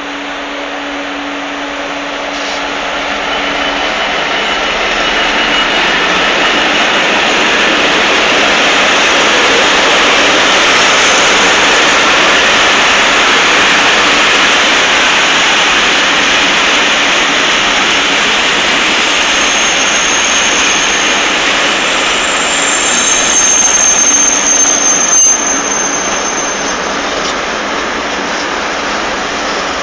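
A diesel freight locomotive passing with its engine drone, giving way to the continuous rumble and clatter of a long train of loaded covered hopper wagons rolling by on the rails. Brief high metal squeals and a sharp click come from the passing wagons a little past two-thirds of the way through.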